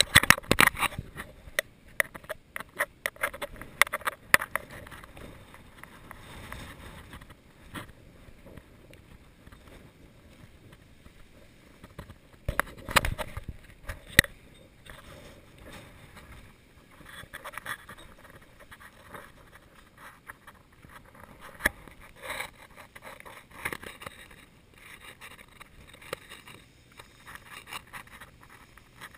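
Handling noise from a hand-carried camera jostled on a walk: irregular knocks, clicks and scrapes, densest in the first few seconds and again about 13 seconds in, sparser rustling after that.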